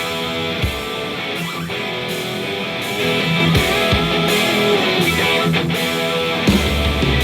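Rock music with guitar playing loud through a Sony SRS-XB501G Bluetooth smart speaker; heavy bass comes in about six and a half seconds in.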